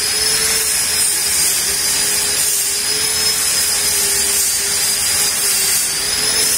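A steady motor whine over an even hiss, unchanging throughout, from a machine running continuously, like a fan or blower.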